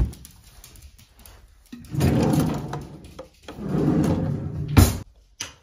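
A kitchen cutlery drawer sliding on its runners, with two long rumbling slides, then a sharp knock near the end as it shuts.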